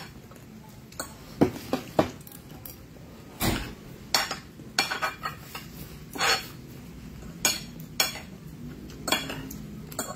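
Metal fork clinking and scraping against a plate while eating: about a dozen irregular sharp clinks, a few of them louder.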